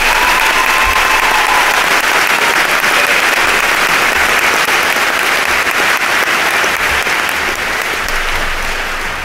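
Large audience applauding a speaker who has just finished, a dense, steady clapping that thins out near the end.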